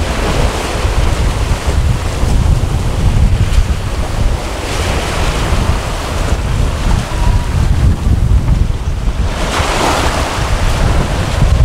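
Wind buffeting the microphone over the rush of sea water along a sailing yacht's hull, with louder washes of spray and bow wave a few times, the loudest near the end.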